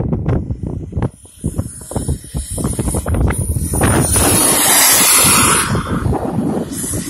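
Wind buffeting the microphone, then the Evojet 220 turbine of a large RC Fiat G91 model jet passing: a high turbine whine and jet hiss swell to their loudest about four to five and a half seconds in, then ease off.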